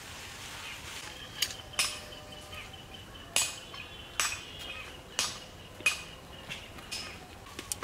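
Metal kitchenware clinking: a series of separate clinks and knocks, roughly one every half second to a second, some with a short high ring.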